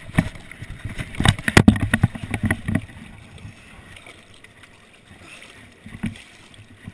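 Knocks and splashes of someone stepping over rounded river stones into shallow water, busiest in the first three seconds. Then quieter splashing over the running river as a landed salmon is held by the tail in the shallows.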